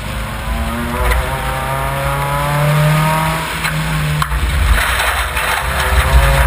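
Subaru Impreza rally car's flat-four engine revving hard under acceleration, its pitch climbing for about three seconds, then dropping about three and a half seconds in before pulling again. Gravel and wet mud crackle against the car over the last couple of seconds.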